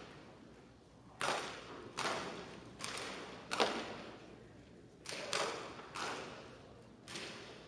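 Daisy Model 499 spring-air BB guns firing on a match firing line: about seven separate shots at uneven intervals, each a sharp pop that echoes briefly through a large hall.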